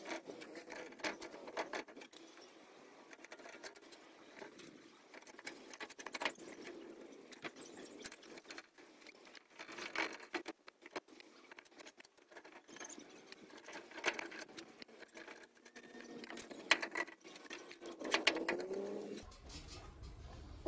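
Paintbrush strokes on a welded square steel-tube table frame as black paint is brushed on: soft, irregular scratching and tapping of the bristles against the metal, coming in bunches.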